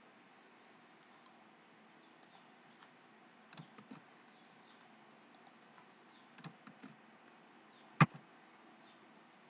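Sparse computer keyboard key presses, faint: a couple of soft taps about three and a half seconds in, a few more around six and a half seconds, and one sharper click at about eight seconds.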